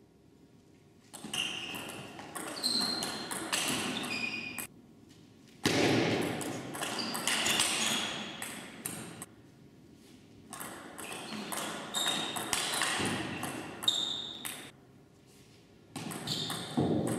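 Table tennis rallies: the ball clicks off bats and table in quick exchanges, with short high squeaks among the hits. Three rallies are separated by brief quiet pauses, and a fourth starts near the end.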